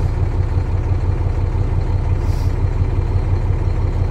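Semi-truck diesel engine idling steadily, heard from inside the cab as an even low throb. A short faint hiss comes about two seconds in.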